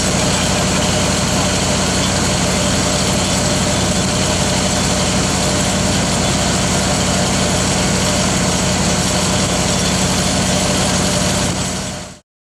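Heavy-machinery engine idling steadily, with an even hum and no change in speed; it fades out near the end.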